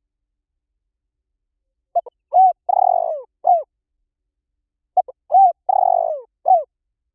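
Spotted dove cooing: two identical phrases starting about two seconds in and about three seconds apart, each a short note or two, a coo, a longer coo falling in pitch, and a final short coo.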